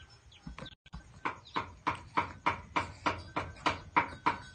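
Steady rhythmic clicking, about three clicks a second, starting about a second in and getting louder after that.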